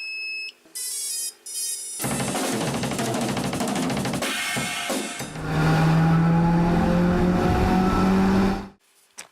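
Intro music: a few short electronic tones, then a loud passage of drums and cymbals that stops suddenly near the end.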